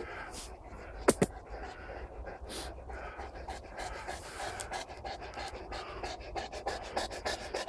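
Neapolitan mastiff panting close up, a dense run of short breaths. A sharp double click about a second in.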